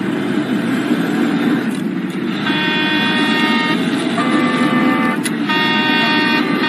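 Steady engine and road rumble heard from inside a truck's cab. About two and a half seconds in, a vehicle horn starts sounding in three long blasts, the middle one at a slightly different pitch.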